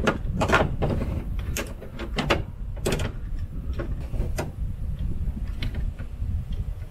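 Plastic and brass hose fittings clicking and scraping as a water hose is handled and threaded onto a Y-valve, in irregular knocks, over a steady low rumble.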